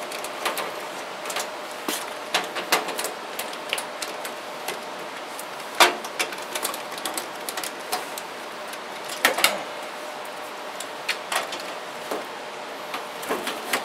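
Scattered clicks and light metallic knocks from a screwdriver working the screws of a furnace's sheet-metal front panel and the panel being handled, with two louder knocks about six and nine seconds in.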